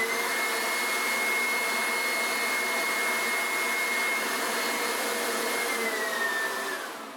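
A steady whirring, rushing noise like a motor or blower, with a thin whine that rises slightly in pitch at the start and drops as the sound fades out near the end.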